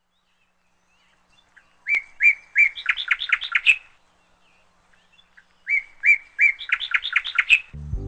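A small songbird singing two phrases a couple of seconds apart, each a run of about ten quick, clear notes that speed up toward the end.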